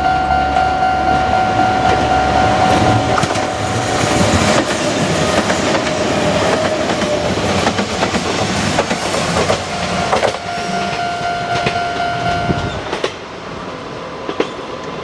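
Japanese railway level-crossing alarm bell ringing in quick repeated strokes while a Kintetsu Minami Osaka Line electric train runs over the crossing, its wheel and running noise swelling through the middle and drowning the bell. The bell stops about thirteen seconds in.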